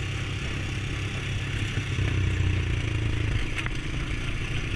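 Single-cylinder Honda ATV engine running steadily while riding a rough trail, with rattling and a sharp click a little past halfway.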